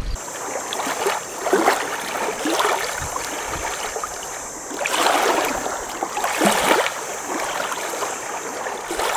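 River water lapping and splashing at the bank, swelling and easing several times, over a steady high hiss.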